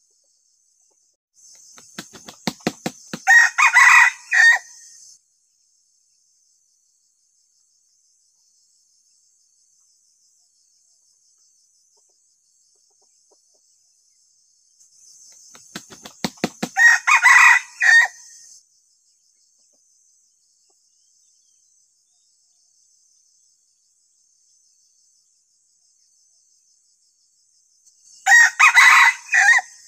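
Decoy red junglefowl rooster (ayam pikat) crowing three times, about twelve seconds apart. Each short crow is preceded by a quick run of wing-flap beats, and the last crow comes near the end. Insects buzz faintly in the background.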